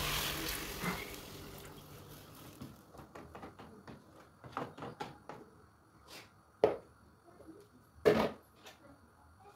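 Water poured from a plastic jug into a pot of browned pilau rice: a rush of pouring water that fades over the first two seconds or so. Then a wooden spoon stirs the rice and water, knocking against the pot, with two sharp knocks in the second half.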